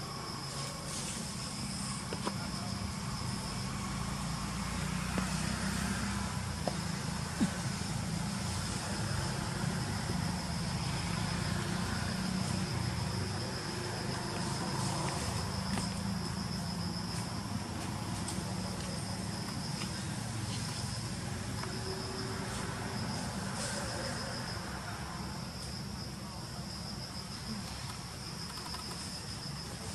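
Steady, high-pitched insect drone in the forest over a low rumble, with a few faint ticks.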